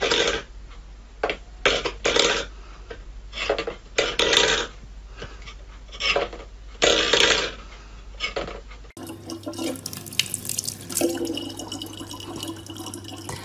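A stainless steel pet bowl pushed and batted by a cat's paw, scraping and clattering on a wooden floor in a string of short bursts. About 9 seconds in, this gives way to a thin stream of tap water running steadily into a plastic water bottle, with a low hum under it.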